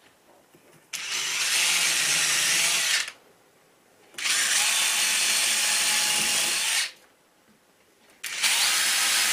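DeWalt cordless drill driver with a 5 mm bit drilling holes into a wall, in three runs of about two seconds each with short pauses between: the first starts about a second in, the next about four seconds in, and the last about eight seconds in.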